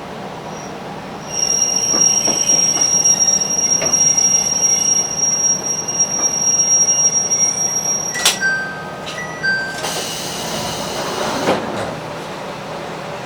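Wheels of an AN-8800 diesel railcar squealing on the rails in one steady high pitch for several seconds over the running noise of the car. A sharp click follows, then a few short beeps at two pitches and a louder rush of noise near the end.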